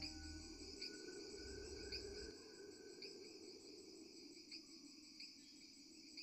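Faint, steady chirping of crickets, pulsing about once a second.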